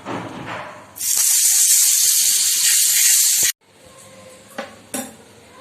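Butter hitting hot mustard oil on a heated tawa and sizzling loudly, starting about a second in and stopping abruptly about two and a half seconds later. A couple of faint ticks follow.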